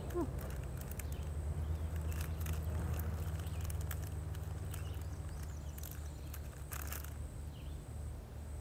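A nearby engine idling, a steady low hum. Light clicks and rustles from handling food sit on top of it.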